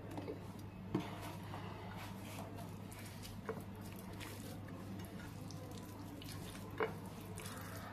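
Fingers mixing mashed spiny gourd with mustard oil on a ceramic plate: soft wet squishing, with three short sharp clicks, about a second in, midway and near the end, over a steady low hum.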